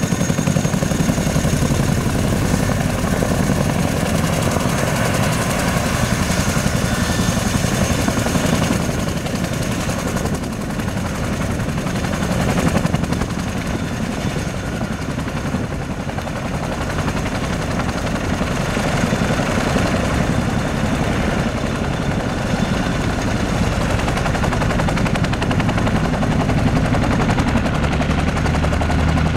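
Boeing CH-47F Chinook's tandem rotors turning at speed on the ground: a steady, rapid chop of blade beats over the aircraft's turboshaft engines. A high turbine whine is strong at first and fades about a third of the way in.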